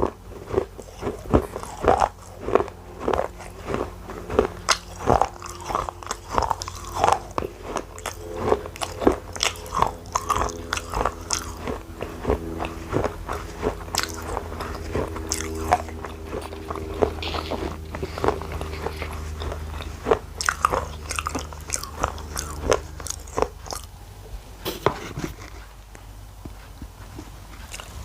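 A person biting and chewing pieces of baked clay, with rapid, irregular crisp crunches close to the microphone. A steady low hum runs underneath for much of the middle.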